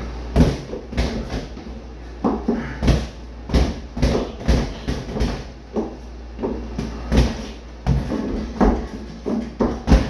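Boxing gloves striking a freestanding punching bag in an irregular run of thuds, about two a second, mixed with heel steps on a hardwood floor.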